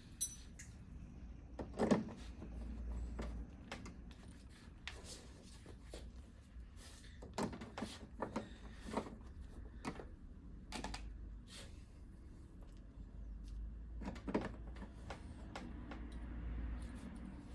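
Scattered clicks, taps and knocks of tools and the television's plastic frame being handled while screws are put back in, with a low hum at times.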